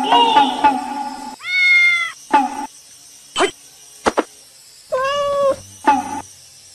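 Domestic cat meowing twice, two drawn-out meows about three seconds apart.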